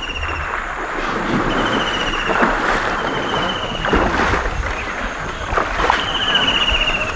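An elephant wading through a shallow river, water sloshing and splashing around its legs. A short high trill repeats several times in the background.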